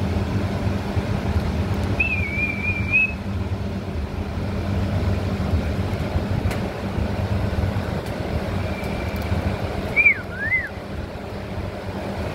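A steady low hum runs throughout. A thin, wavering whistled call of about a second comes two seconds in, and a short two-note whistled call about ten seconds in is the loudest moment.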